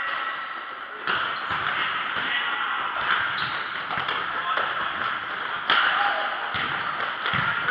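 Futsal match play on a hard indoor court: the ball being kicked and thudding on the floor in a few sharp knocks, over a steady din of players' footsteps and shouting.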